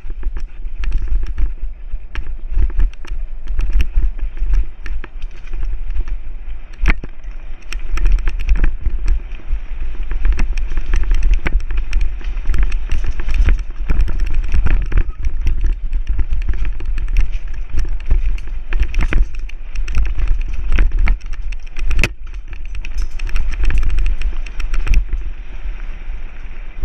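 Mountain bike riding fast down a dirt singletrack: wind buffeting the camera's microphone as a heavy low rumble, with tyre noise and a constant clatter of knocks and rattles from the bike over the rough trail, a few of them sharper.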